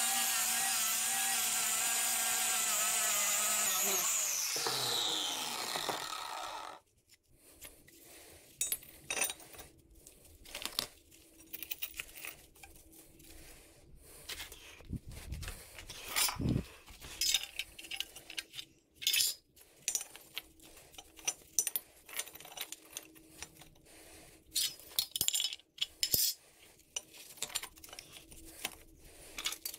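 Angle grinder running, then switched off about four seconds in and spinning down with a falling whine. After that come scattered clinks and knocks of steel tube pieces and welding magnets being handled and set out on a concrete floor.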